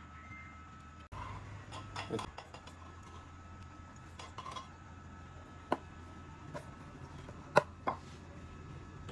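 A metal spoon clinking against a plastic mixing bowl of ingredients: a few separate knocks, the loudest two close together near the end, over a faint steady hum.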